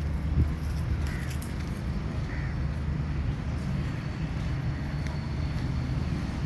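A crow caws faintly a couple of times over a steady low rumble.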